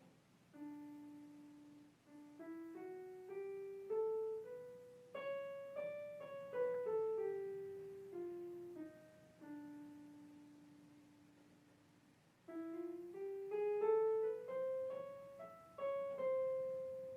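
Solo piano music playing a slow, simple melody: single notes climbing and falling in short phrases, each note ringing and fading.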